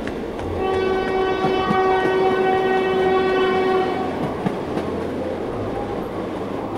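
Train horn sounding one long steady blast of about three seconds, over the continuous rumble of the train.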